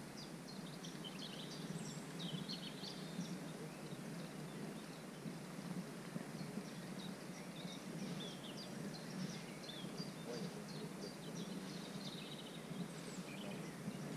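Small birds chirping, many short high calls throughout, over faint steady outdoor background noise.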